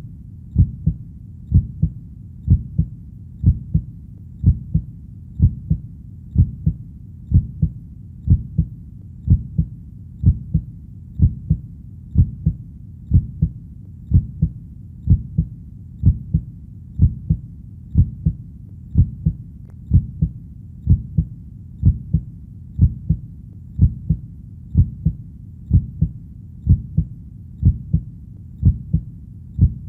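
Heartbeat sound: a steady double beat (lub-dub) about once a second, low-pitched, with a faint low background rumble between beats.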